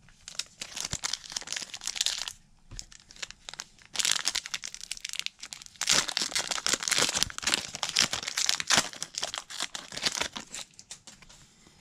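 Foil trading-card pack wrapper being torn open and crinkled by hand, in repeated bursts of crackling.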